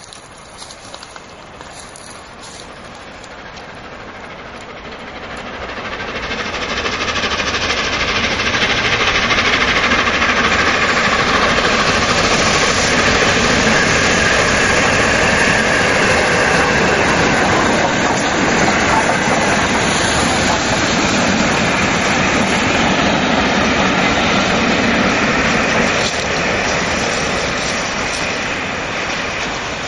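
Three coupled 4-6-2 steam locomotives, LNER A1 60163 Tornado, BR Britannia 70000 and LNER A4 60019 Bittern, running through as a triple header with their carriages. The sound builds over the first several seconds as the train approaches, stays loud while the engines and coaches go by with wheels clattering on the rails, and eases slightly near the end.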